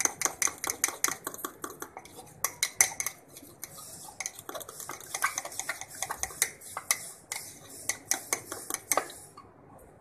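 Metal spoon beating chocolate cake batter in a ceramic mug, clinking rapidly against the sides several times a second. It stops near the end.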